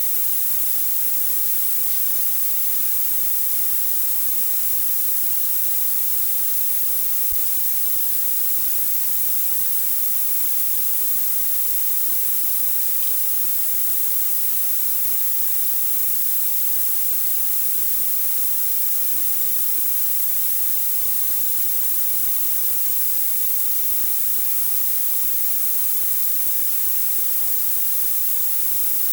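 A steady, even hiss, strongest in the high treble, with no distinct events.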